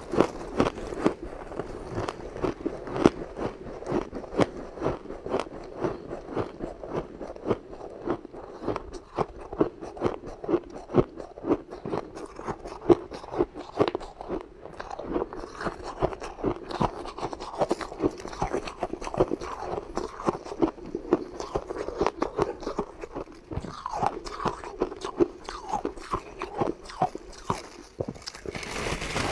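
Biting and chewing a packed block of powdery frost ice, close-miked: a dense, continuous run of crisp crunches and crackles, some bites louder than the rest.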